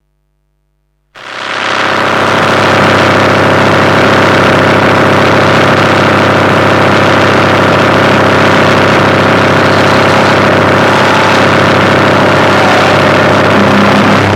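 Harsh noise music: after about a second of silence, a loud, dense wall of noise fades in and holds steady, with many layered droning tones beneath it.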